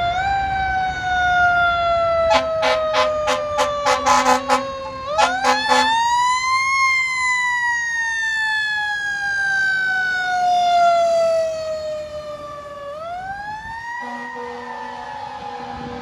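Fire engine siren wailing, falling slowly and winding back up twice, with a rapid run of about a dozen short air horn blasts a few seconds in. It grows fainter near the end as the engine moves away.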